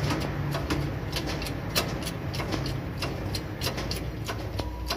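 A steady low hum with irregular sharp clicks and taps from hand work on a truck's chassis beside its air-suspension bag and jack.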